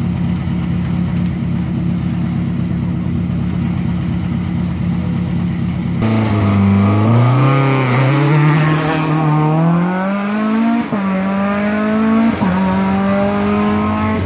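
Rally car engine idling steadily at the start line, then about six seconds in pulling away hard, the revs climbing with two sharp drops at upshifts near the end.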